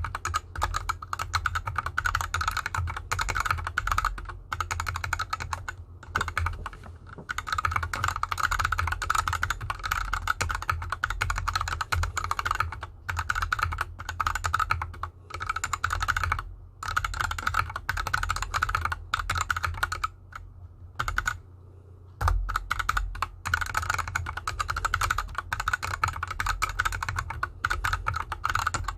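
Fast, continuous typing on a GK64X mechanical keyboard with unlubricated Gateron Yellow linear switches and DSA keycaps, the board resting on an artificial grass mat. The keystrokes stop for about two seconds some two-thirds of the way through, then resume.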